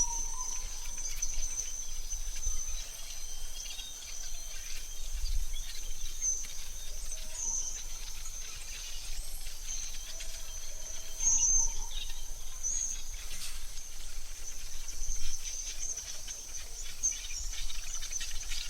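Forest ambience: a steady high insect drone with short bird chirps every few seconds and a few faint lower bird notes over a low rumble.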